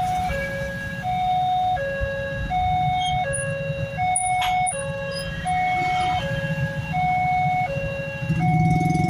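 Railway level-crossing warning alarm sounding a repeating two-tone electronic chime, a higher and a lower note alternating about every three-quarters of a second. Under it, idling motorcycle and truck engines rumble, and an engine grows louder near the end as a scooter passes close.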